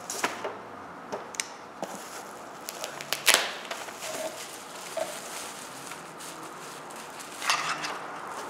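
Clear plastic wrapping crinkling and crackling as it is handled and pulled off a multimeter, in scattered short rustles, with a louder burst about three seconds in and another near the end.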